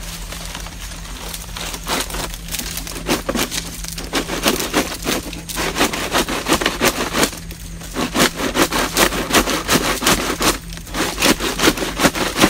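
Dry wood and branches crackling, snapping and scraping in a dense, irregular run of sharp clicks that starts about a second and a half in, with a few brief pauses.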